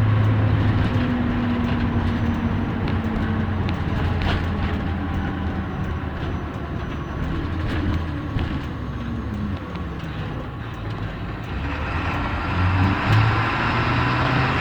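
2004 Blue Bird school bus driving, heard from inside: engine hum and road noise that ease off after about a second, then build up again as the engine pulls harder near the end.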